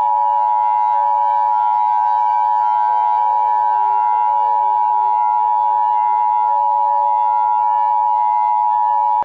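Emergency Alert System attention signal: two steady tones sounding together, loud and unbroken, then cutting off sharply near the end.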